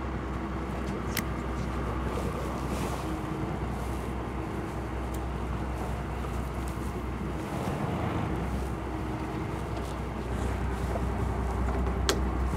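Fishing boat's engine running steadily with a low hum, with wind on the microphone. Two sharp clicks, about a second in and near the end.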